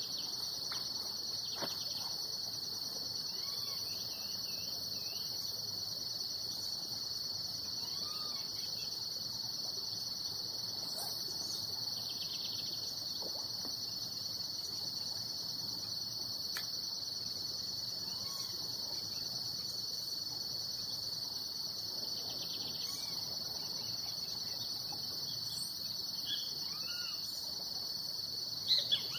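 Steady chorus of insects, a continuous high-pitched buzz, with faint scattered bird chirps and a brief louder sound near the end.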